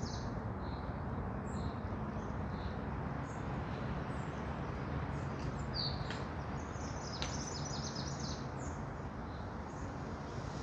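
Forest ambience: a steady low rushing background with a songbird singing a fast trilled phrase about two-thirds of the way through, and a few short chirps and faint clicks scattered across the rest.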